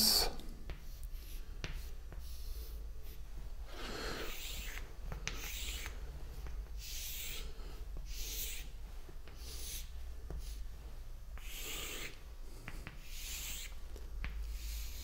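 Chalk drawing lines on a blackboard: a run of separate scratchy strokes of about half a second each, starting about four seconds in, with a few light taps as the chalk meets the board.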